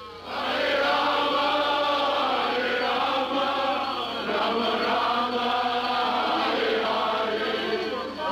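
A group of voices chanting a devotional chant together, coming in just after the start.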